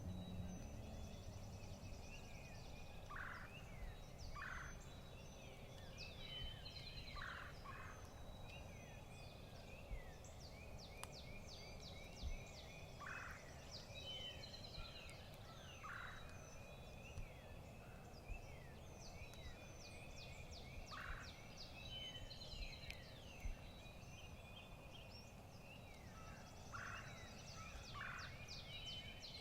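Wild turkeys calling with short gobbles every few seconds, over a steady chorus of songbirds chirping.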